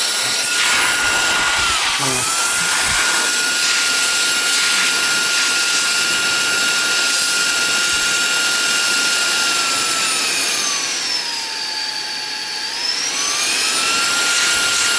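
Reikiya HV-C11 cordless handheld vacuum running as an air blower: a small high-speed motor's steady high-pitched whine over the rush of air, said to be powerful. The pitch sags briefly about two seconds in and again for a few seconds near the end before rising back.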